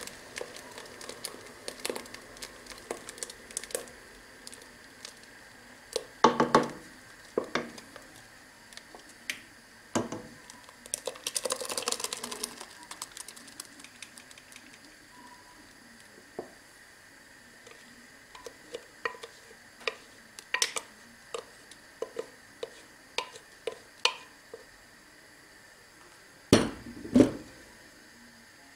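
A wooden spoon scraping soy purée out of a blender jug and knocking and stirring in a stainless steel pot, giving scattered clicks and knocks. The two loudest knocks come near the end.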